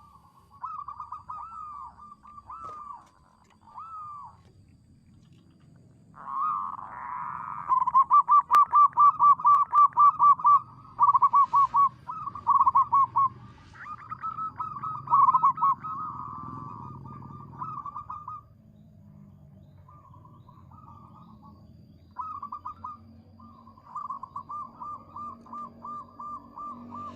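Zebra doves calling: bouts of rapid, staccato cooing notes repeated several times a second. The loudest run is in the middle, with a pause a little after that before the calling starts again near the end.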